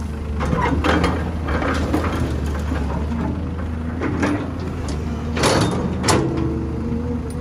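Caterpillar hydraulic excavator loading a dump truck: diesel engines running with a steady hum, dirt and rocks clattering into the steel truck bed for the first couple of seconds. Then a few sharp clanks and scrapes as the bucket swings back and digs into the dirt pile.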